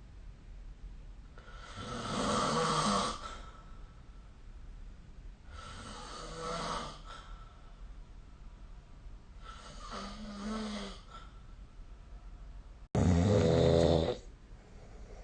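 A sleeping person snoring: four snores spaced about four seconds apart, the last one the loudest and starting abruptly.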